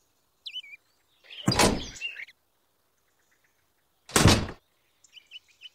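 Two short thunks as a small plastic toy cement mixer is handled and set down on sand, about one and a half and four seconds in. Brief bird chirps are heard near the start and the end.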